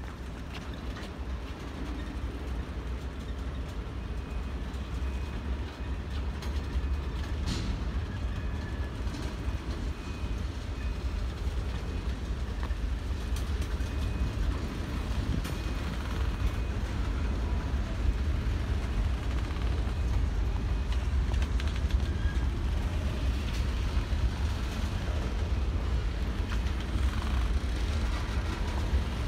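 Freight train of boxcars and covered hoppers rolling past: a steady rumble of wheels on rail with a few faint high squeals and clanks, growing slightly louder.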